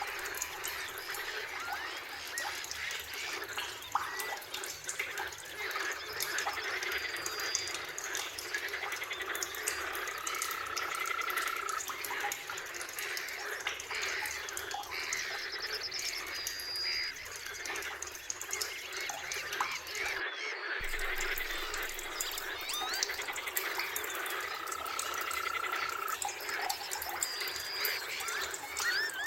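Dense forest chorus of birdsong and frog calls, many chirps and trills overlapping, with a long steady whistled note heard twice. The sound breaks off for a moment about two-thirds of the way through.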